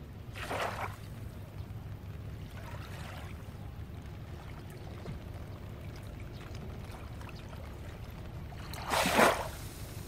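Small sea waves lapping and splashing at the edge of calm, shallow water: one splash about half a second in, a fainter one around three seconds, and a louder one near the end, over a steady low rumble.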